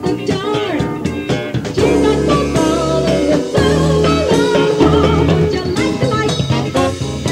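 A live band playing: drums, bass, guitar and keyboards, from a group that also has two saxophones and a singer, recorded in a small club.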